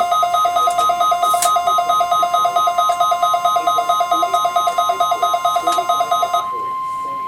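Weather radio receivers sounding their alert alarm, a fast-pulsing warbled electronic tone, over the steady 1050 Hz NOAA Weather Radio warning alarm tone of the weekly test. The warble stops about six and a half seconds in, leaving the steady tone alone.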